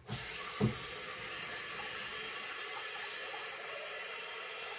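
Water running steadily from a kitchen tap into a container, shut off right at the end, with one light knock about half a second in.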